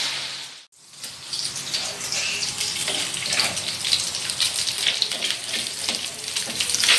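Chicken breast pieces sizzling and crackling as they sear in a hot wok. The sound cuts out briefly a little under a second in, then the sizzling and spitting carry on.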